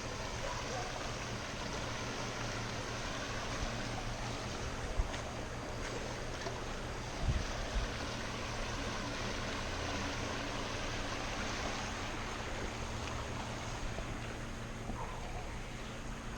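River water rushing steadily, with a few brief low knocks about five and seven seconds in.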